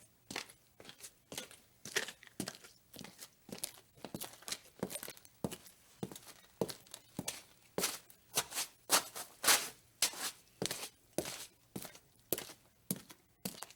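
Footsteps walking at an even pace of about two steps a second, each step a short, crisp scuff.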